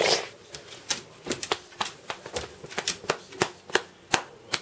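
Dog's claws clicking on a hard floor as she moves about, irregular light taps about four a second, after a brief noisy huff at the start.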